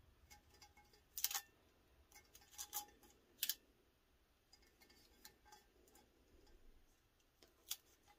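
Heat-resistant tape being pulled and pressed around a paper-wrapped tumbler: a few short crackling snaps, mostly in the first three and a half seconds with one more near the end, and faint handling rustles between.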